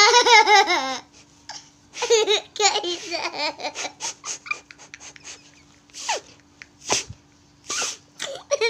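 High-pitched laughter in fits: a wavering peal in the first second, another at about two to three seconds, then short breathy gasps and giggles.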